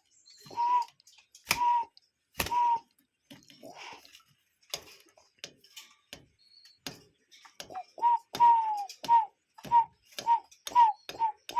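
A bird giving short, clipped single calls, mixed with sharp clicks. A few calls come spaced out at first, then a quickening run of about eight calls in the second half.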